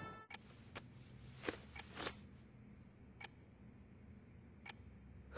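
Near silence with a handful of faint, scattered soft clicks. A low background hum cuts off just after the start.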